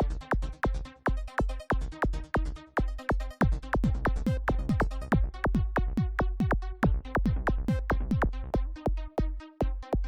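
Electronic dance music in a melodic trance/electro style: a fast, even kick-drum beat, each hit dropping in pitch, under held synthesizer notes.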